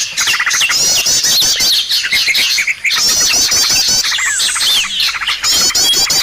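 Dense bird chatter from a bird-lure recording: many small birds chirping and twittering at once. A rapid run of high, sweeping notes recurs in the same form about every three seconds, as in a looped recording.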